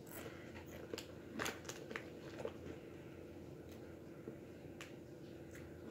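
Taco-flavored Doritos tortilla chips being crunched and chewed, a quick run of crisp crunches in the first two and a half seconds, then a few scattered ones.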